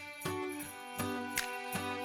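Background music with a light, regular beat.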